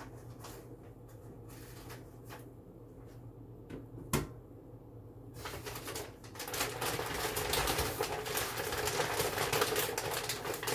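A brown paper bag being handled, crinkling and rustling loudly from about halfway through, after a few light clicks and one sharp knock.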